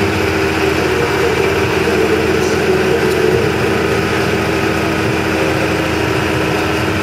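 An engine idling, a steady, unchanging drone.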